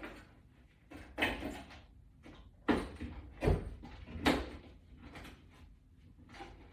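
Wall-mount bracket section being handled and set in place against a wall: a few separate knocks and clunks, spaced about a second apart.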